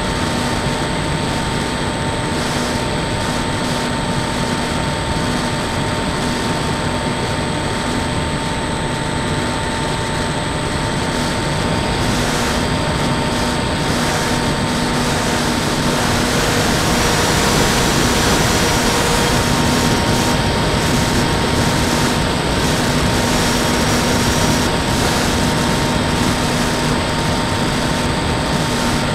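Onboard sound of an electric RC foam plane in flight. Wind rushes over the nose-mounted camera, over the steady hum of the brushless pusher motor and propeller. The sound swells for a few seconds past the middle.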